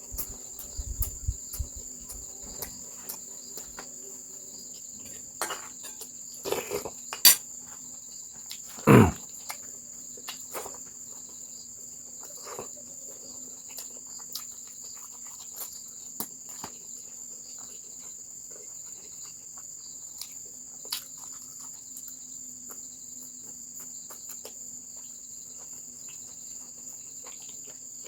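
Steady chirring of insects, typical of crickets, with scattered small clicks and two louder sharp knocks about seven and nine seconds in.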